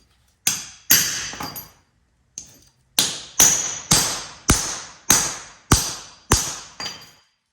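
Hammer blows on a hammer-type crimp tool, crimping a 2-gauge lug onto copper battery cable: about a dozen sharp metallic strikes that ring briefly, a few scattered at first, then steadily about two a second.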